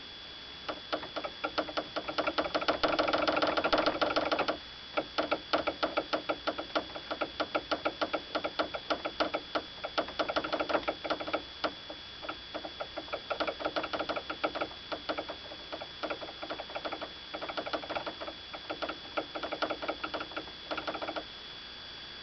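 Toyota Avensis T25 suspension-area knocking: rapid rattling taps in repeated bursts of a few seconds with short pauses. It is the sign of a brake line left unsecured at the factory, with no rubber grommet, tapping against the body.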